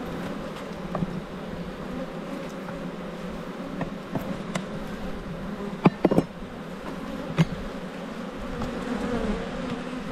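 Honeybees buzzing over an open hive, a steady wavering hum, with a few sharp clicks of a metal hive tool against the wooden frames about six seconds in and again near seven and a half.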